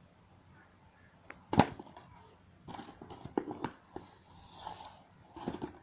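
Scissors working at the string tied round a cardboard parcel box: one loud sharp click about one and a half seconds in, then runs of smaller clicks and scraping rustles. The scissors are blunt.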